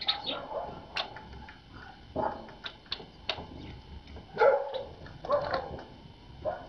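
A dog barking now and then, loudest about two, four and a half and five seconds in, mixed with brief high calls of tits around a winter feeder.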